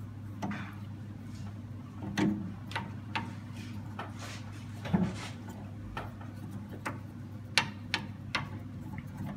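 Screwdriver driving a screw into a printer's sheet-metal frame: irregular small clicks and scrapes as the screw turns, over a steady low hum.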